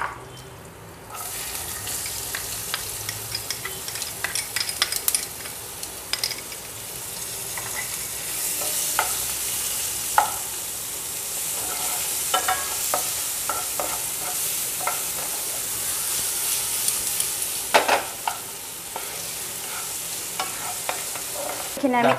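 Chopped onions sizzling in hot oil in a nonstick frying pan, stirred with a wooden spatula that scrapes and taps against the pan. The sizzle starts about a second in as the onions go into the oil, and grows stronger around eight seconds in.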